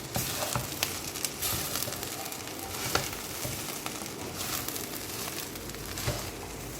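Fried rice with vegetables and chicken breast sizzling in hot oil in a pan while being stirred, with scattered clicks and scrapes of the stirring utensil against the pan.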